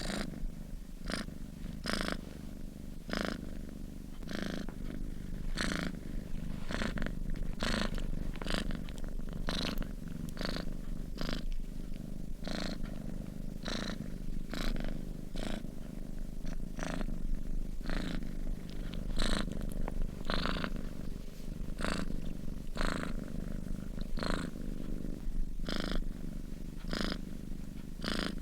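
Sleeping domestic cat purring steadily: a continuous low rumble with a regular breathy pulse about once a second.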